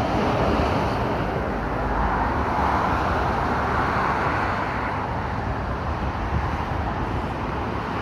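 Busy main-road traffic: a continuous rush of tyres and engines, with a louder vehicle swelling past about two to four seconds in.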